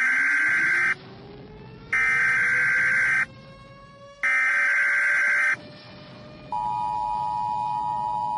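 Emergency Alert System SAME header: three bursts of warbling data tones, each a little over a second long, about a second apart. About six and a half seconds in, the steady two-tone EAS attention signal starts. Underneath, a faint low tone slowly rises in pitch.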